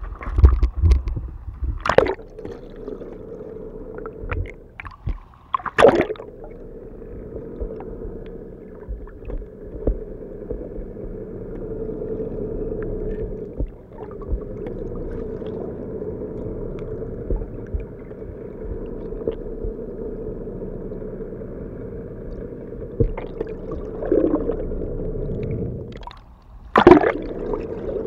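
Muffled underwater sound picked up through an action camera's waterproof housing: a steady hum with gurgling water, broken by a few loud knocks about two and six seconds in and again near the end.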